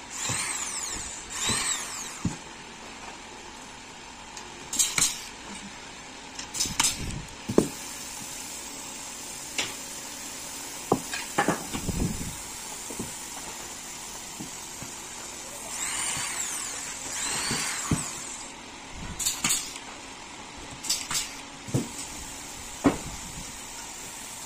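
Handheld power drill run in short bursts, its pitch rising as it spins up and falling as it winds down, near the start and again about two-thirds of the way through. Sharp knocks and clicks come in between.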